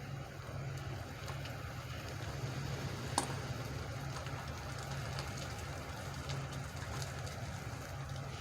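Truck engine running steadily at a distance as a low drone, with faint scattered clicks and one sharp knock about three seconds in.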